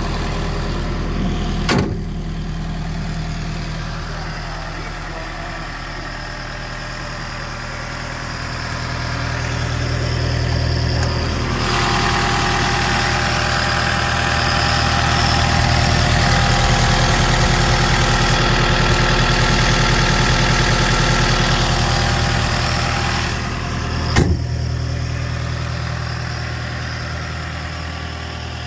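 Takeuchi TB240 mini excavator's diesel engine idling steadily. It grows louder and brighter for about ten seconds in the middle, heard close to the open engine bay. There are two sharp clicks, about two seconds in and a few seconds before the end.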